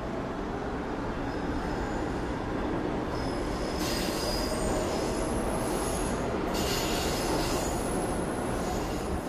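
New York City subway train running on the rails: a steady low rumble, with high-pitched wheel squeal coming and going from about a second and a half in.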